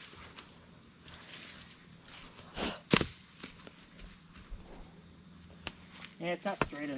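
Steady high-pitched insect chorus in the woods, with scattered footsteps and twig crackles on the forest floor and one sharp crack about three seconds in; a brief voice near the end.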